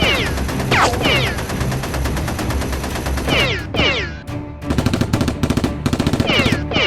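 Background music with repeated falling swoop tones, and a rapid burst of gunfire-like shots through the second half.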